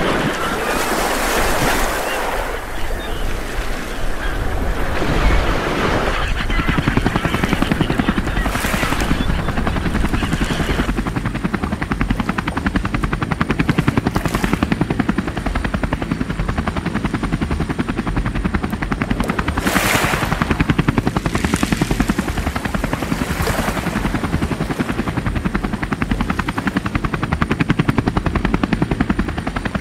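Wind and water rushing for the first few seconds, then from about six seconds in a steady motor with a fast, even pulse, broken by a few brief louder rushes.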